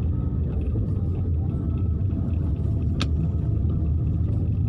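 Low, steady rumble of a car driving along a wet street, heard from inside the cabin. A single sharp click sounds about three seconds in.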